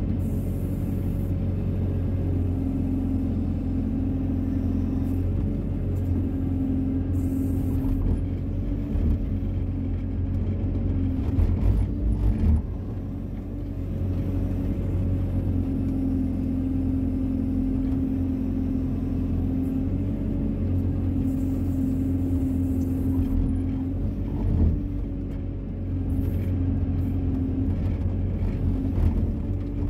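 Hyundai wheeled excavator's diesel engine running steadily while the machine digs, heard from inside the cab. A few short knocks come near the middle and again later, each followed by a brief drop in the engine's level.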